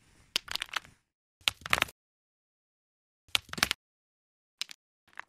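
Hard clicking and clacking of small hard tiles knocking and sliding against each other. It comes in short clusters cut apart by dead silence: three busy ones in the first four seconds, then a couple of single clicks near the end.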